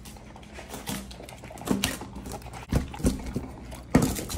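Two Belgian Malinois eating from stainless steel bowls: wet chewing and lapping with irregular clicks and clinks against the bowls, and a louder knock near the end.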